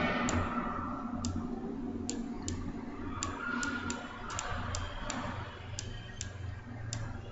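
Sharp, irregular clicks, roughly two a second, from the pointing device as letters are hand-drawn stroke by stroke on an on-screen whiteboard. A low hum lies underneath.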